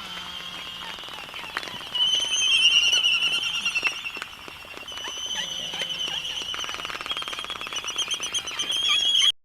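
Albatross calling: high-pitched, rapidly warbling cries that swell loud about two seconds in, ease off, then build again and cut off abruptly near the end.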